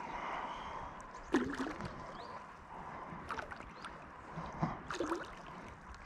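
Water lapping and gurgling against a float tube moving through a river, with several short splashes.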